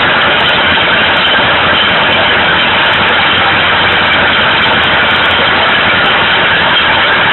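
Fiat 70-66 DT tractor's four-cylinder diesel engine running steadily while pulling a ring roller across a sown field, heard loud and close from the driver's seat.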